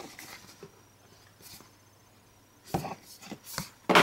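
A few light knocks and clicks of handled plastic objects, with a soft rub early on. The knocks come in a cluster near the end, and the last is the loudest.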